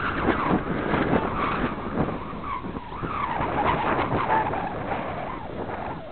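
Gusty wind buffeting the microphone, with uneven rising and falling loudness.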